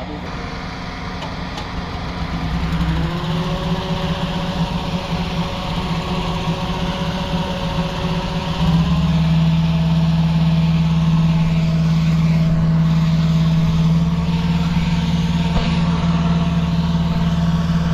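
Gasoline-engine balloon inflator fan running and throttled up in two steps, about three seconds in and again near nine seconds, its pitch and loudness rising each time before it holds steady. It is blowing cold air into the envelope for the cold inflation.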